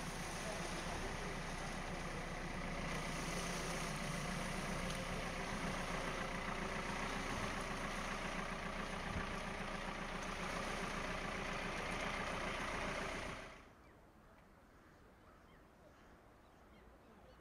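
Engines of an RNLI launch tractor and an inshore lifeboat's outboard motors running steadily at the water's edge. The sound cuts off about thirteen seconds in, leaving only faint outdoor ambience.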